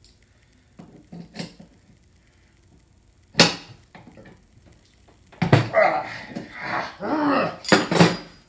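Metal tool and machine-part handling: a few light clicks, a sharp clank about three and a half seconds in, then several seconds of clattering and scraping with some pitched squeaks, ending in two sharp knocks.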